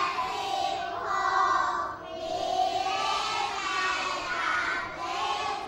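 A class of young children reading a number aloud together in a slow, sing-song chorus, in Thai, in a few drawn-out phrases.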